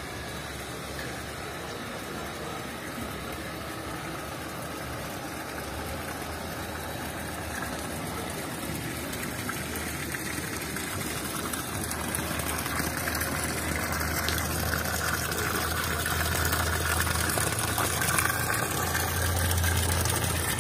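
Steady rush of running water from a garden water feature, growing louder over the stretch. A low hum underneath grows stronger near the end.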